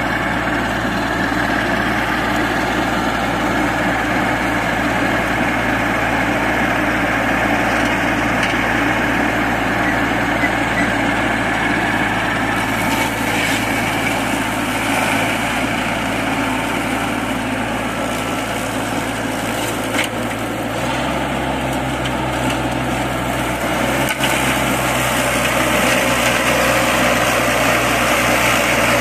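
Baroness LM320AF ride-on four-wheel-drive front-deck mower running steadily while its deck cuts through tall grass. The engine note shifts slightly about two-thirds of the way through.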